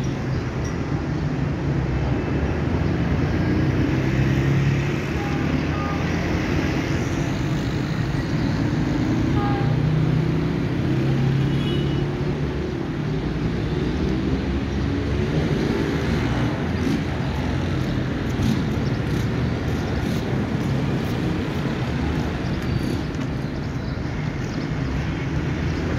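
Steady low rumble of a distant diesel locomotive approaching along the track.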